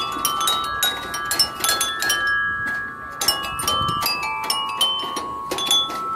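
Chimes ringing in a rapid, irregular run of metallic strikes, many ringing tones overlapping, with a brief lull about halfway through.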